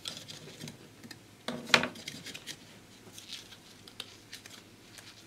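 Light metallic clicks and taps of small circlip pliers working a tiny metal circlip off a small fan. The sharpest click comes about a second and a half in, and fainter ticks follow as the fan is handled.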